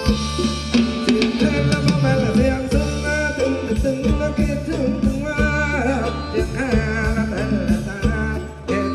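Thai ramwong dance music from a live band: a steady drum beat and bass under a wavering sung melody.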